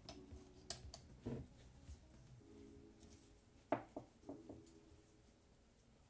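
A few faint, sharp clicks and taps, one about a second in and the loudest a little past the middle, over faint background music that fades in and out.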